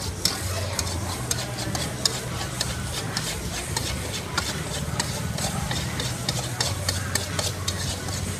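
Metal spatula scraping and clinking against a steel wok as pad Thai noodles are stir-fried, with many irregular sharp clinks and a steady low hum underneath.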